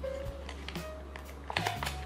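Clear plastic blister packaging being handled and pried open, with crinkles and a quick cluster of sharp plastic clicks near the end. Background music with a low steady bass plays underneath.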